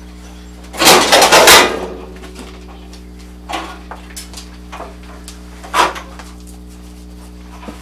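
Radiator support and grille assembly of a 1981 Ford Bronco clattering and scraping as it is pulled loose from the front of the truck. There is a loud rattling burst about a second in, then two shorter clanks.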